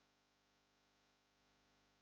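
Near silence: faint, steady room hiss during a pause in the snoring.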